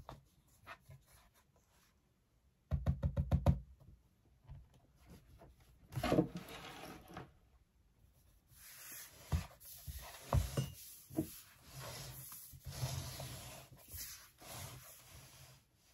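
Handling noise from an iPad Pro in its Magic Keyboard case and a laptop being picked up and moved about on a wooden desk: a quick run of clicks about three seconds in, a knock a few seconds later, then a longer stretch of rustling broken by knocks.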